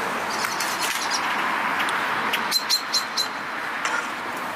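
Tortellini being tipped from a sieve into a saucepan of hot water on a portable induction hob, over a steady hiss. About two and a half seconds in come about five quick, light metallic clinks of utensil against pan.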